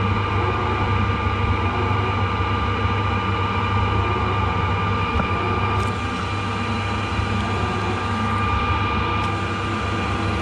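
XYZ ProTurn 1440 ELX CNC lathe running a peck-drilling cycle: the spindle and drives hum steadily with several constant whine tones. Coolant sprays onto the turning part.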